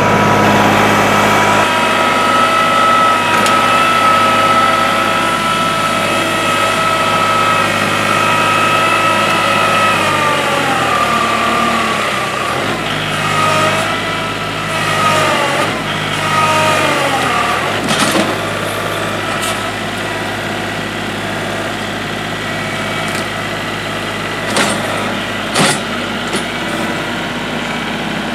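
Kubota L3301 HST compact tractor's three-cylinder diesel engine running hard as the tractor pushes a giant log with its dirt-loaded front bucket. From about ten seconds in the engine pitch sags and climbs back several times as it labours under the load, then settles to a lower, steadier run. A few short sharp knocks come near the end.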